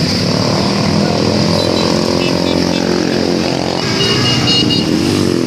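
Tour bus engine running steadily, with a few short high tones about two seconds in and again around four seconds in.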